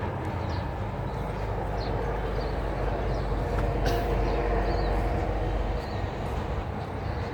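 Rural outdoor ambience: a steady low rumble that eases about six seconds in, with a few short, faint high chirps scattered through.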